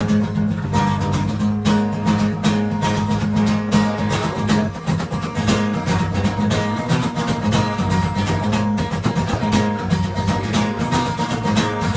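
Acoustic guitar strummed in a steady rhythm, playing the instrumental introduction of a song before the vocals come in.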